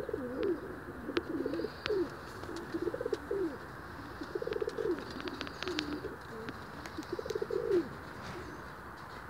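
Brodawczak Polski pigeons cooing, a string of low rising-and-falling coos one after another that ease off about eight seconds in, with a few light clicks among them.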